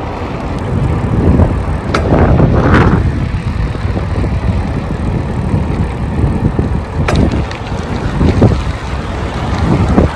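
Wind rushing over the microphone of a phone carried on a moving bicycle: a loud, steady low noise with a few short clicks or knocks.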